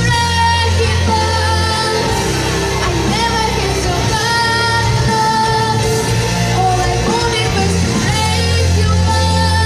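A pop-rock song with a singer holding long notes over a steady bass line and band backing.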